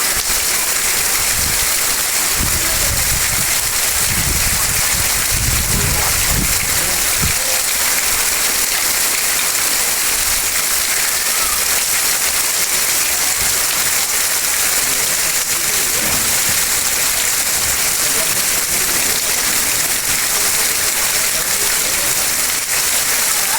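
Heavy rain falling in a steady, dense hiss, with some low rumbles in the first several seconds.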